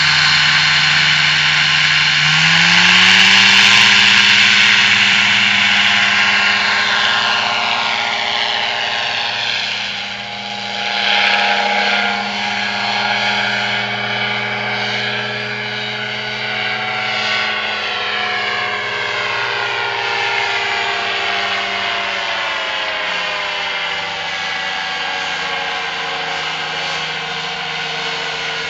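Powered parachute's engine and propeller: throttled up about two seconds in for the takeoff run, then running loud and steady as it climbs. The pitch swings as it flies past, and the engine note drops a little after about twenty seconds.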